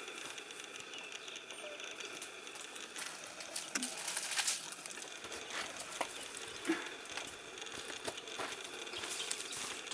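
Scattered crackling and rustling clicks over a steady hiss, busiest about four seconds in, with one sharper click near seven seconds.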